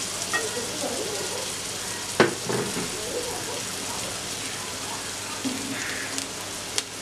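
Chopped onions sizzling in hot oil in a metal wok, a steady hiss. A sharp knock comes about two seconds in and a smaller click near the end.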